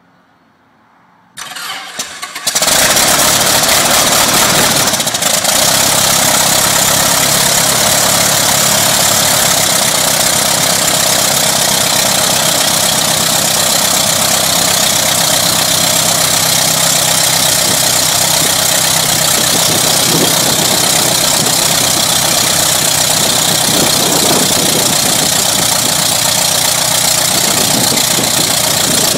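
Van's RV-8 homebuilt airplane's piston engine on its first start: a brief uneven stretch of cranking, then the engine catches about two and a half seconds in and runs loudly and steadily with the propeller turning.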